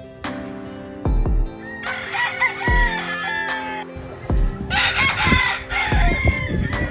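Gamecock crowing twice, each crow about a second long, over background music with a deep beat about every second and a half.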